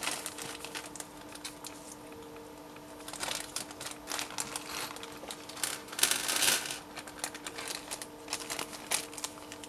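Small clear plastic zip-lock bag crinkling and rustling as it is handled and opened by hand, with a louder rustle about six seconds in. A faint steady hum runs underneath.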